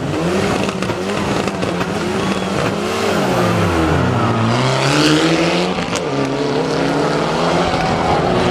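Mitsubishi Lancer Evolution IX rally car's turbocharged four-cylinder engine running hard at high revs. The engine note falls steeply about three seconds in, then rises again as it pulls back up.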